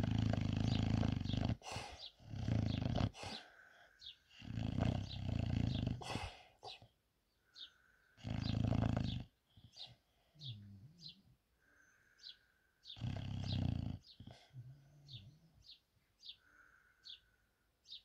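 English bulldog snoring in deep sleep: loud snores come every few seconds at an uneven pace, with softer pitched breaths between them.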